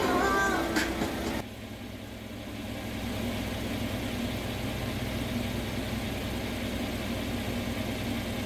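Background music that cuts off about a second and a half in, followed by the steady low hum of the Mercedes-Benz W212's engine idling.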